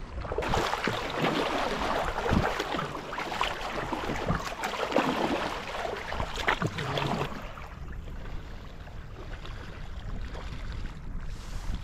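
Kayak paddle strokes splashing, with water rushing along the hull of a sit-on-top fishing kayak and wind rumbling on the microphone. The splashing water drops away after about seven seconds, leaving a softer wash and the wind rumble.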